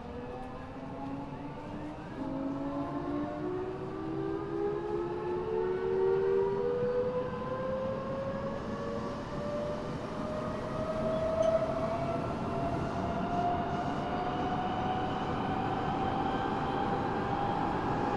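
Teito Rapid Transit 6000-series subway car's Mitsubishi three-level VVVF inverter (a unit taken from the 7000 series) whining and rising steadily in pitch as the train accelerates, over the rumble of wheels on rail. The whine is high-pitched, and it is noticeably different from the other 6000-series Mitsubishi three-level cars.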